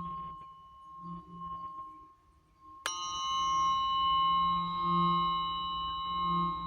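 A singing bowl's ring fades away, then the bowl is struck sharply about three seconds in and rings on: a steady tone with several higher overtones over a slowly wavering low hum.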